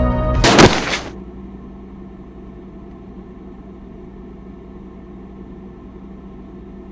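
A short loud crash about half a second in, a body landing after dropping through a hole, followed by a steady low hum.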